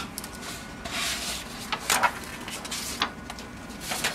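Short rubbing sounds and sharp clicks, one about two seconds in and one near the end, around an Anajet mp5i direct-to-garment printer starting up after power-on with its top cover held open.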